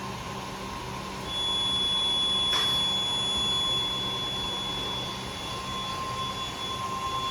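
Multitrack pouch packing machine running with a steady hum. About a second in it gets louder and a steady high-pitched tone comes in and holds.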